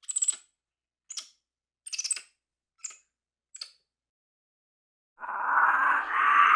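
Capuchin monkey calls: a series of five short, high chirps about a second apart, then after a pause a longer, lower, noisier call in two parts about five seconds in.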